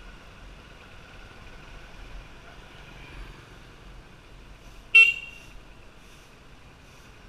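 Vehicle horn giving one short toot about five seconds in, over steady traffic noise.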